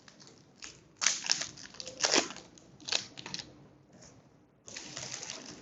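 Foil wrapper of a trading-card booster pack being crinkled and torn open, in several short crackling bursts, the longest near the end.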